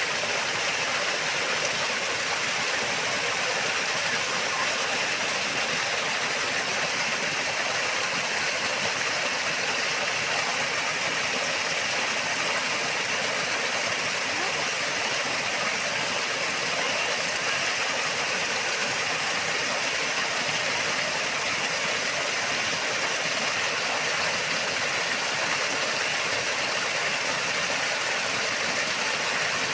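Waterfall: water pouring and rushing in a steady, unbroken roar.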